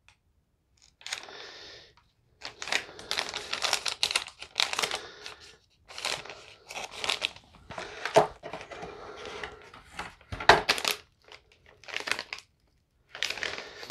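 Crinkling plastic of a flameless ration heater bag being handled and squeezed in bouts with short pauses, with one sharp snap about ten and a half seconds in. The heater is being worked to get it to activate and is barely reacting.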